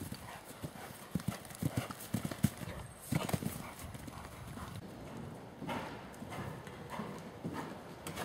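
Hoofbeats of a horse cantering on grass: an irregular run of dull thuds.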